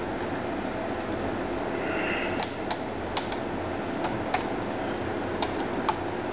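Computer keyboard keys pressed one at a time, a slow, uneven run of single clicks as a password is typed with one hand, over the steady whir of a running desktop PC's fans.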